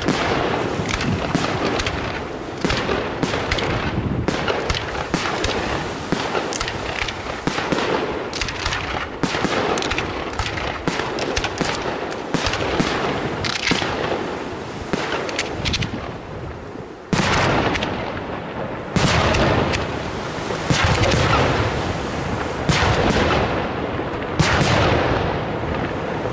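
Aerial firework shells bursting in a rapid, continuous barrage of bangs and crackle. About sixteen seconds in the barrage briefly thins, then a sudden loud bang starts a fresh volley, with another a couple of seconds later.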